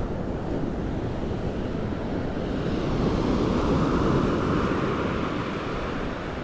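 Ocean surf washing on a beach, swelling louder about halfway through, with wind buffeting the microphone.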